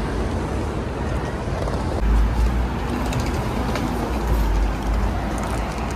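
Steady city street traffic noise of passing road vehicles, with a deep rumble that strengthens about two seconds in.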